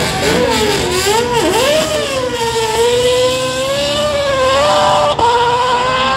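Open-wheel single-seater race car engine launching from the start and accelerating hard away. The revs waver at first, then climb, with a sudden drop at a gear change about five seconds in.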